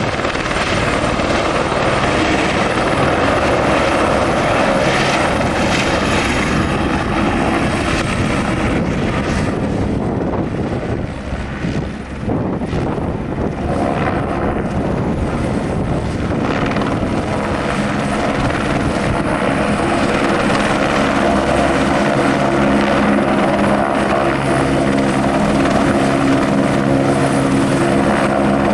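Airbus AS350B3 Ecureuil helicopter running, its single turbine and main rotor loud and steady throughout. The sound dips briefly about eleven seconds in. A strong, even rotor tone stands out through the second half.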